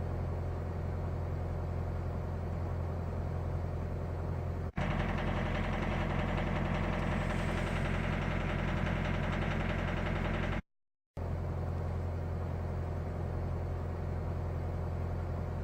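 Mitsubishi 4D56 2.5-litre four-cylinder diesel idling. About five seconds in, the sound cuts to a louder, harsher clatter with fast knocking, the knock this engine makes for the first two or three minutes after a cold start. After a brief gap it cuts back to a smoother idle. The owner wonders whether a leaking injector is the cause.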